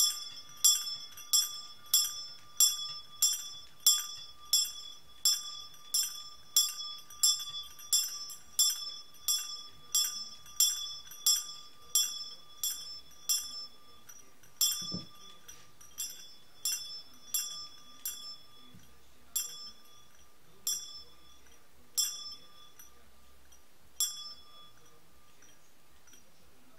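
A small, high-pitched bell being rung, struck about twice a second with each stroke ringing on briefly. About halfway through, the strokes slow and come irregularly as the ringing dies down, with the last one near the end.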